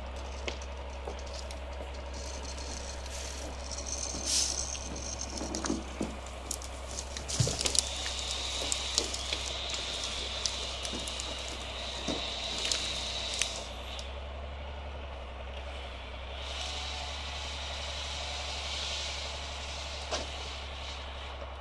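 Mercedes Unimog engine running steadily at idle, with intermittent clanks and rattles.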